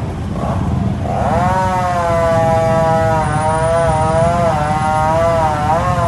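Chainsaw running at high revs, coming in about a second in, its pitch sagging and recovering as it cuts into fallen tree limbs, over a steady low rumble.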